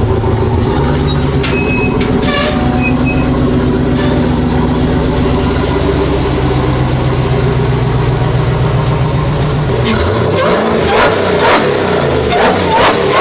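Supercharged 6.2-litre HEMI V8 of a Hellcat Redeye-swapped Ram pickup idling steadily, then revved in several quick blips over the last few seconds.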